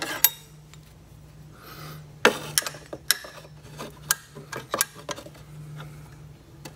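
Steel Allen key clicking and scraping against a motorcycle's motor-mount bolt and frame as it is worked into the bolt head: a scatter of sharp, irregular metallic clicks, over a steady low hum.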